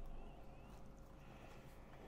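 Faint, soft handling sounds as a pizza slice is pulled free in a cardboard pizza box, close to near silence.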